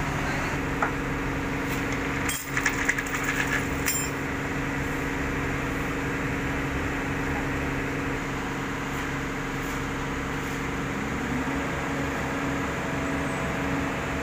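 Heavy diesel engine idling steadily, with a short flurry of metallic clinks and knocks between about two and four seconds in, and a slight rise in the engine's pitch near the end.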